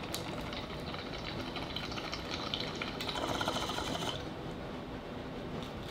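Water bubbling in a bong as smoke is drawn through it: a rapid, even bubbling that grows louder and then stops about four seconds in, with a click near the start.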